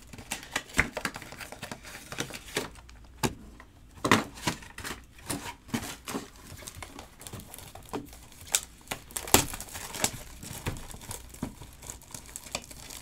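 Plastic shrink wrap crinkling and tearing as sealed trading-card boxes are unwrapped and handled, with irregular sharp taps and rustles throughout.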